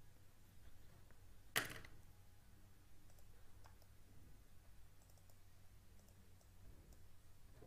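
Near silence with a faint low hum, broken by one sharp click about one and a half seconds in and a few faint computer mouse clicks later.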